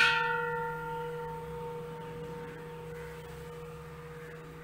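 An old, lower-quality vellodu (white bronze) uruli struck once with a piece of metal, ringing like a bell. The higher tones die away within about a second while a mid tone and a low hum linger. The ring is shorter-lived, the mark of a lower-quality vellodu vessel.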